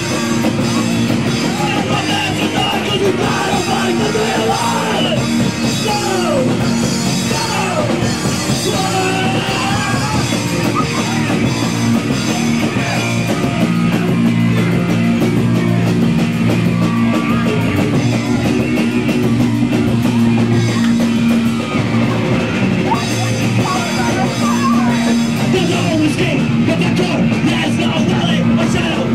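Punk rock band playing live and loud: distorted electric guitar, bass and drum kit pounding through an instrumental stretch with no sung lyrics.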